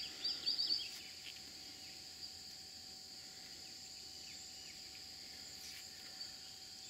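Steady high-pitched drone of insects, with a quick run of short chirps in the first second.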